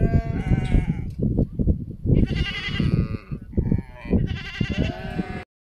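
Goats bleating, about three long wavering bleats, over low knocks and thuds.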